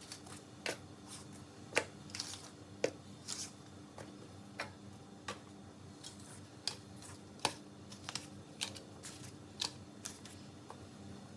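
Scattered light clicks and taps, irregular and about one or two a second, from handling as the proofed mantou buns are set into a steamer, over a steady low hum.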